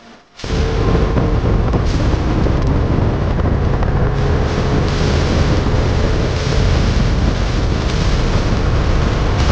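A fishing boat running at speed behind its 225 outboard: a loud, steady rush of wind on the microphone and water noise over the motor, starting abruptly about half a second in.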